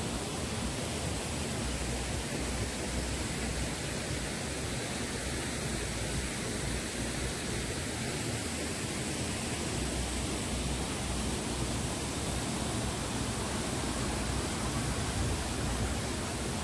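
Waterfall's water rushing in a steady, unbroken roar.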